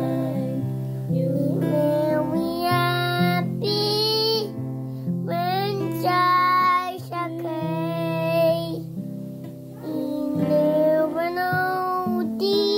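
A three-year-old boy singing a song in a high child's voice, accompanied by chords on an acoustic guitar.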